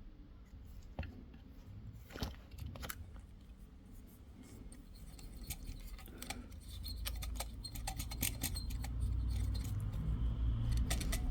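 Scattered light clicks and scraping of a hand tool on a thermostat's circuit board while it is being cleaned, with a low rumble building in the second half.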